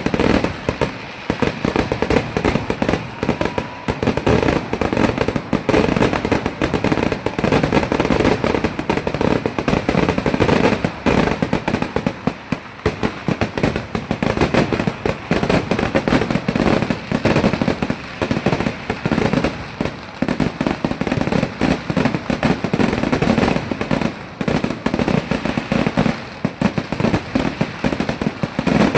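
Kerala temple-festival fireworks (vedikettu): a dense, unbroken barrage of firecracker explosions, many bangs a second, running on without a pause.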